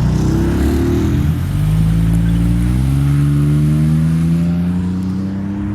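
Car engine accelerating away. Its pitch rises, drops about a second in, then climbs steadily again until the sound cuts off.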